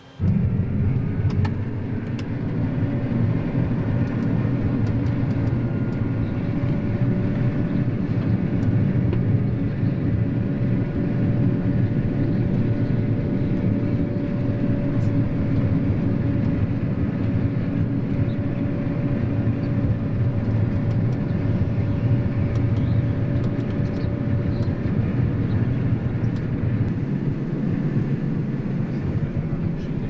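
Claas Lexion 8700 combine harvester heard from inside its cab while cutting and threshing wheat. Its engine and threshing machinery make a steady low rumble, with a steady whine over it that drops out near the end.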